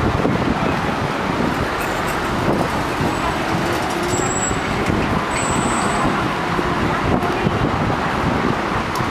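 Steady city road traffic: cars, vans and buses running at a busy intersection, with a brief faint high-pitched squeal about halfway through.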